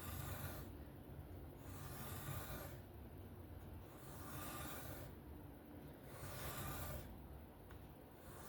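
An S30V folding-knife blade stroked freehand across a sharpening stone: about four hissing scrapes, each roughly a second long, about two seconds apart.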